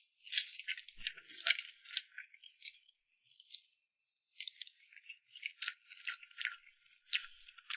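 Close-miked mouth sounds of eating cream cake: a dense run of small wet, sticky clicks and crackles, easing off briefly about three seconds in before picking up again.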